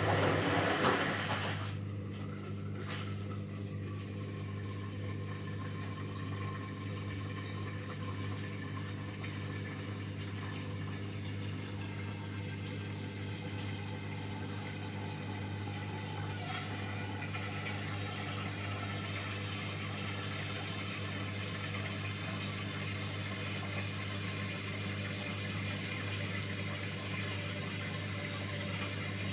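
Washing machine running on its spin cycle, with water rushing: loud rushing noise for the first two seconds or so, then a steady low hum with a wash of water noise over it.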